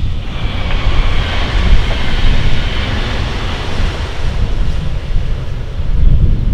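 Electric multiple-unit passenger train passing at speed: the rushing hiss of wheels on rails swells over the first couple of seconds and fades as the train draws away. Heavy wind rumble on the microphone throughout.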